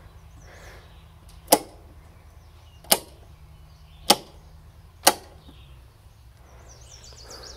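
Four circuit breakers in a subpanel snapped on one after another, four sharp clicks roughly a second apart: the new panel's branch circuits being switched on for the first time.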